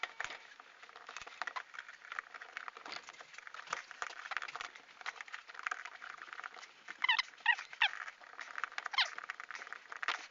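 A dog whimpering in short, high, whining cries, three in quick succession about seven seconds in and another about nine seconds in, over light clicks and rustling from hands working on hose fittings.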